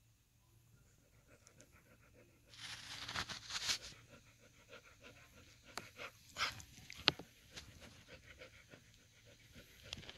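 Airedale Terrier bitch panting heavily in early labour: quick, airy breaths, loudest from about two and a half to four seconds in. A single sharp click comes about seven seconds in.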